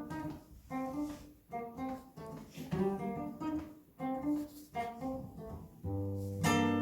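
Acoustic guitar playing the closing bars of a song: a run of single plucked notes, then a final chord about six seconds in that is left to ring.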